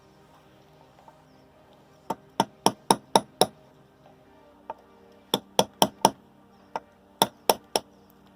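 Hammer tapping a steel Lovejoy jaw coupling down onto a shaft: about fifteen sharp metal-on-metal strikes with a ringing clink, in three quick runs of roughly four taps a second.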